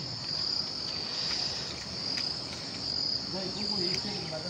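Insects trilling in wet grass and crops: a continuous high-pitched trill that swells and fades every second or so.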